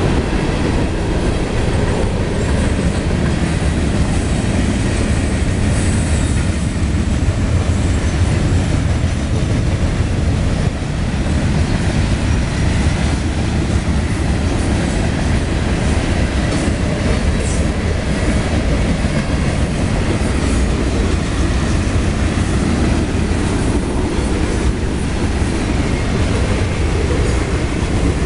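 Freight cars of a CSX mixed freight train rolling past: a steady, loud rumble and rattle of steel wheels on the rails.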